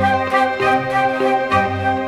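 Instrumental background music: held, layered notes over a bass line that moves to a new note about every half second.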